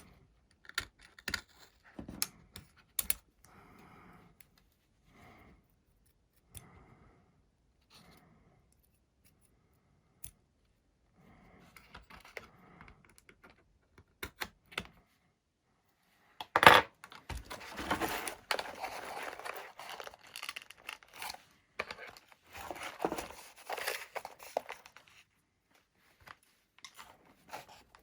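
Hands working on small hobby parts at a bench: scattered clicks and light knocks, then from a little past halfway a louder stretch of rustling and tearing noise lasting several seconds, opening with a sharp knock.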